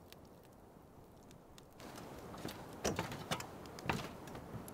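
A wood campfire crackles faintly with small pops. Then louder knocks and clatter follow: footsteps on a truck camper's metal entry steps and the camper door being handled, with three sharp knocks about a second apart.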